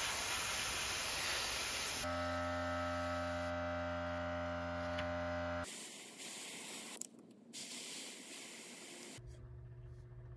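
Airbrush spraying paint onto a wooden crankbait through a paper mask: a steady hiss of air, in a few separately cut stretches. From about 2 to nearly 6 seconds in, a steady hum runs under the hiss.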